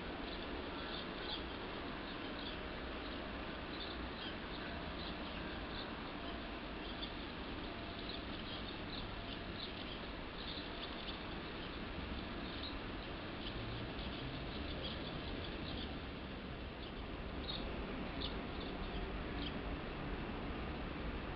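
Many short, high chirps from small birds, scattered irregularly over a steady low background rumble.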